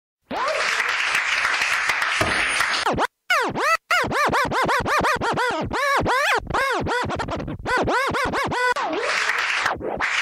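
DJ turntable scratching in a hip hop interlude: a record is rubbed back and forth in quick rising-and-falling sweeps through the middle, with stretches of hissing, noisy scratch sound before and after.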